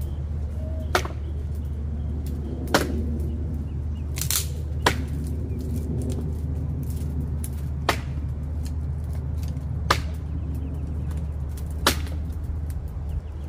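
A series of sharp knocks, one about every two seconds, over a steady low hum.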